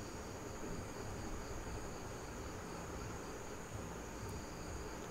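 Faint, steady high-pitched trilling of insects, unbroken throughout, over a low background rumble.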